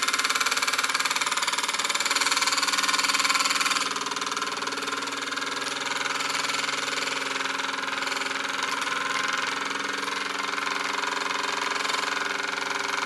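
SEL Junior 1530 toy steam engine's single oscillating brass cylinder running at high speed, its exhaust beats coming so fast they merge into a steady pitched drone. The burner has been raised closer to the boiler to drive it this fast. The sound drops a little in level about four seconds in.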